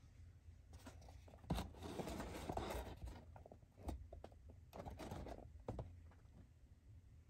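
Faint handling noise of a cardboard perfume box turned over in the hand: soft rubbing and scraping, with a few light knocks.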